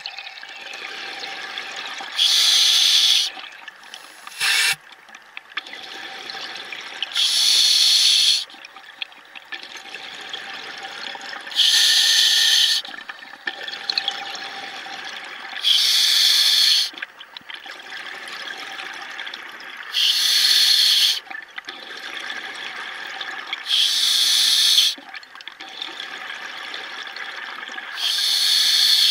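A scuba diver breathing through a regulator underwater: a rush of exhaled bubbles about every four seconds, seven times, each lasting about a second, with a quieter hiss between breaths.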